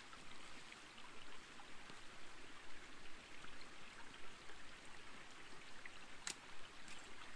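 Small woodland creek trickling over stones, a faint steady babble. A single sharp click sounds about six seconds in.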